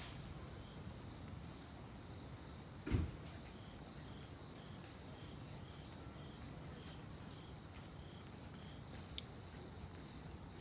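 Crickets chirping in an even, repeating rhythm over the low sound of a wood fire in a fire pit. A single dull thump comes about three seconds in, and a sharp pop from the burning wood near the end.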